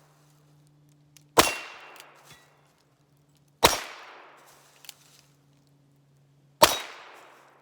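Three shots from a Ruger Wrangler .22 LR single-action revolver, about a second and a half, three and a half and six and a half seconds in, each a sharp crack that fades in a short echo.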